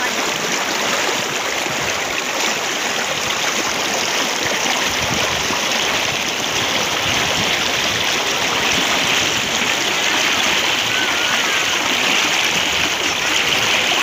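Muddy floodwater from a heavy downpour rushing across open ground, a steady loud rush of water.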